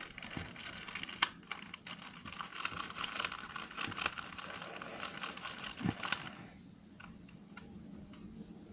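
Scraping and rubbing sticky sticker residue off a plastic 2×2 Rubik's cube: a dense run of small scratches and clicks that thins out to a few scattered clicks after about six and a half seconds.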